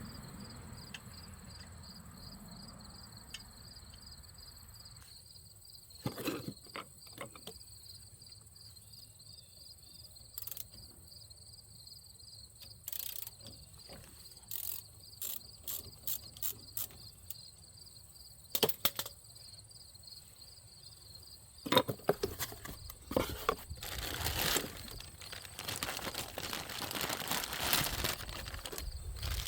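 Crickets chirping in a steady, even pulse, with scattered sharp clicks and knocks of tools and parts being handled from about six seconds in, growing into a busier stretch of handling noise near the end.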